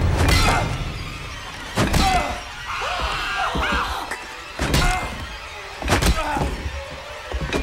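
Horror film sound mix: several heavy thuds and impacts from a violent struggle over a tense music score, with strained vocal cries between the hits.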